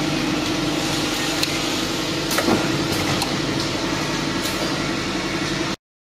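Automatic bottle filling and capping line running: a steady mechanical hum from the conveyor and machines, with a few sharp clicks and knocks. It cuts off suddenly near the end.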